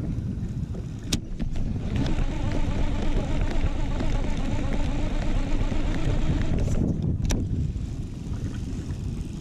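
Conventional fishing reel being worked while jigging an iron: a sharp click about a second in, then a steady whirring of the reel for about five seconds that ends with another sharp click. Low wind rumble on the microphone runs underneath.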